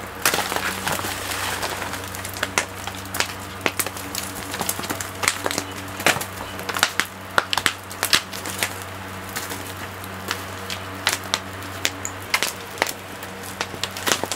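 Irregular sharp cracks and knocks from coconuts being worked by hand, over a steady low hum. A rushing hiss fills the first two seconds.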